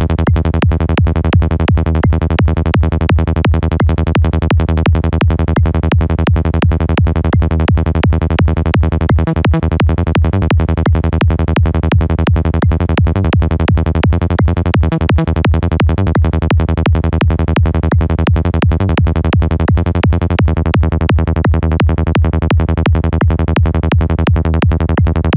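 Sylenth1 software synthesizer playing a looping high-tech psytrance bass line at 170 BPM, a fast, even stream of short, deep bass notes, run through FabFilter Saturn saturation that makes it dirtier.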